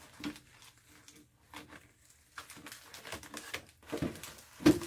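Irregular knocks, clicks and scrapes of a stuck air filter being worked out of its slot in the AC unit, with one louder knock near the end.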